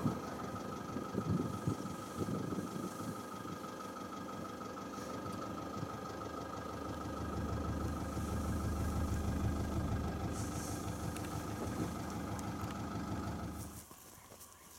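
Vehicle engine idling steadily, a low rumble with a constant whine over it, cutting off suddenly near the end.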